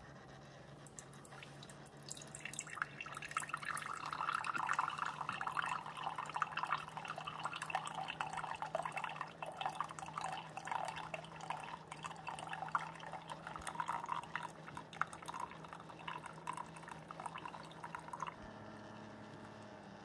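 Keurig K-Express Essentials single-serve coffee maker brewing: a steady low machine hum under the splash of a thin stream of coffee pouring into a glass mug. The splashing starts about two seconds in and stops shortly before the end, when the hum shifts to a slightly higher pitch.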